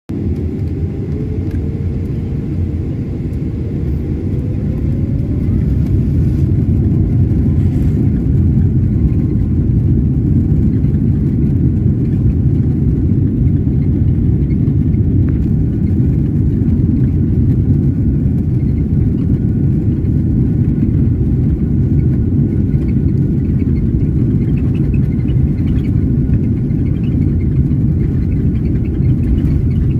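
Garuda Indonesia Boeing 777's jet engines at takeoff power: a loud, deep, steady rumble. A whine rises in pitch over the first several seconds as the engines spool up and the sound swells, then it holds constant.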